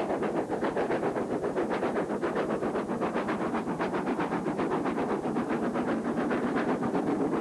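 LNER V2 class three-cylinder steam locomotive working a train, its exhaust beats coming quickly and evenly, several a second.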